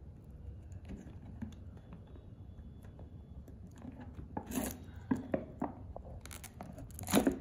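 Foil induction seal on a plastic whey protein tub being picked at with a fingernail: scattered small scratches and clicks, then the foil crinkling and tearing as it is lifted and peeled back near the end, the loudest part.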